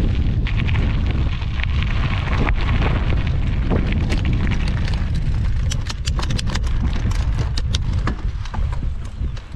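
Wind buffeting the microphone of a camera on a moving bicycle, a loud steady rumble, with the tyres rolling over a gravel track. About halfway through there is a run of sharp clicks and rattles, as the bike jolts over the rough surface.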